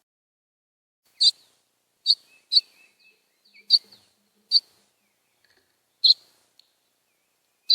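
A bird at a feeder giving short, sharp chip calls, about six of them, irregularly spaced over several seconds.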